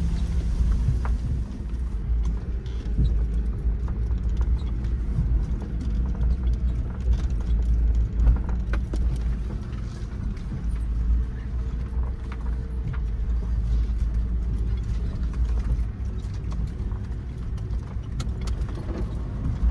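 Suzuki Jimny heard from inside the cabin as it crawls over a rutted dirt track: a low, steady engine drone with frequent rattles and knocks from the body jolting over the bumps, one harder knock about eight seconds in.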